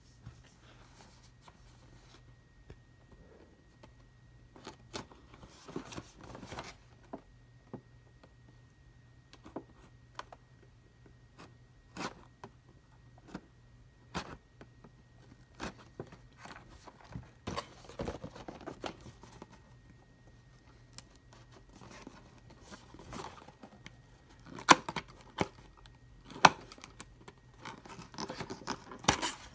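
A cardboard toy box being opened by hand: a blade slitting the tape seals, with scattered short clicks and scrapes of card and tape. Near the end the end flap is pried open, giving the loudest snaps and tearing of tape and cardboard.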